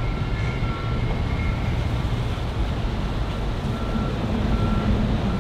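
A 50-ft aluminium fireboat's engines running under way, a steady low rumble mixed with rushing water from its wake. A low hum comes up more strongly about four seconds in.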